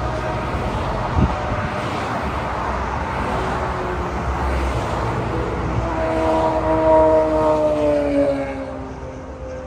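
Highway traffic passing close by: a steady rush of tyre and engine noise from cars and a truck. Near the end a passing vehicle's whine slides down in pitch as it goes by, and then the noise fades. There is a brief knock about a second in.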